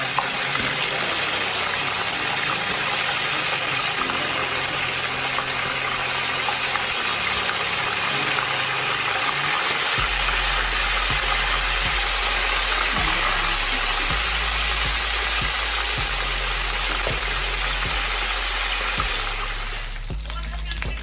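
Snakehead fish steaks deep-frying in a wok of hot oil: a steady sizzle that turns quieter near the end.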